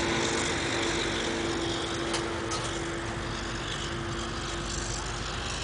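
Henschel diesel locomotives of a freight train running steadily. Their hum of two held tones slowly grows fainter and drops out about four and a half seconds in, leaving an even rumbling noise.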